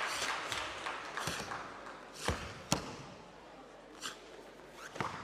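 A karateka's gi snapping and feet stamping on the tatami mat as he strikes through a kata, about six sharp cracks and thuds, the loudest two near the middle, echoing in a large hall.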